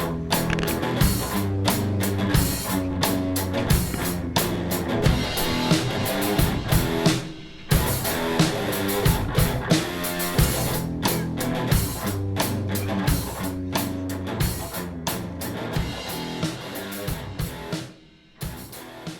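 Instrumental rock background music with guitar and a steady drum beat. It drops out briefly about seven seconds in and fades near the end.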